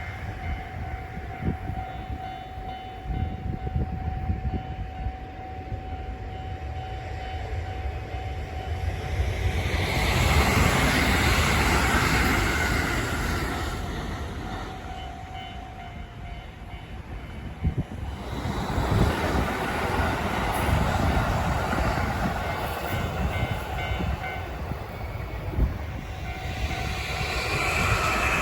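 Japanese level-crossing alarm ringing while trains pass at speed, rushing and clattering over the rails. The loud passes come about ten seconds in and again from about eighteen seconds. A horn sounds with the first pass.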